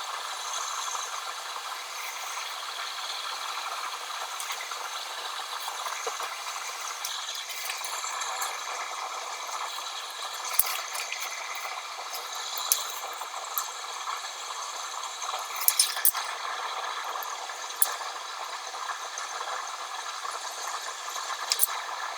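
Steady hiss with a few faint steady tones in it, broken by several sharp small clicks, the first about ten seconds in and a quick cluster a little later.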